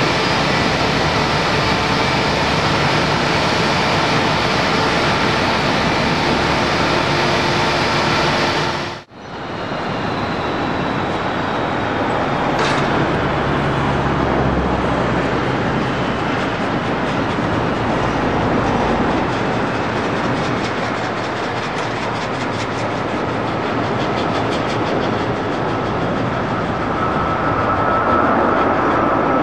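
Jet airliner engines running at an airport: a loud, steady roar, broken by a cut about nine seconds in and then resuming. A high engine whine comes in near the end as a twin-engine airliner climbs out after take-off.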